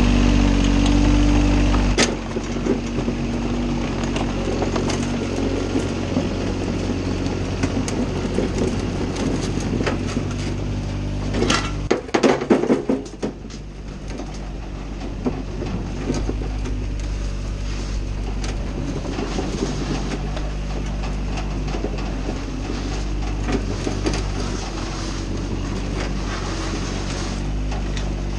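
Mini excavator's diesel engine running steadily as the machine drives on its tracks up aluminium loading ramps onto a truck bed. Knocks and clanks of the tracks on the ramps are scattered through it, with a loud burst of clattering about twelve seconds in.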